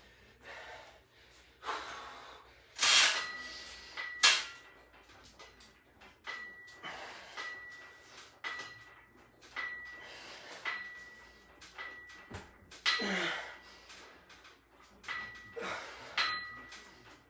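Cable machine worked through a set of standing rope face pulls: one short, high metallic note from the weight stack and pulleys on each rep, about once a second. A few louder breathy swishes are mixed in.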